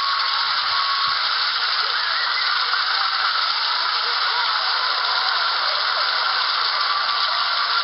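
Studio audience applauding, a steady wash of clapping with no break.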